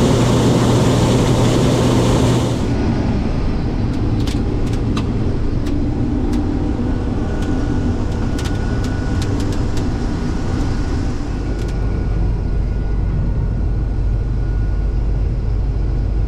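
Case IH 2388 combine harvester running steadily while cutting soybeans, heard from inside the cab as a low drone with a faint steady whine. It is louder and rougher for the first couple of seconds, and scattered light ticks come through in the middle.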